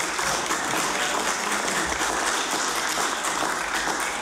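Members of a legislative assembly applauding a carried vote, clapping and thumping their desks: a dense, steady clatter of many hands that keeps up throughout.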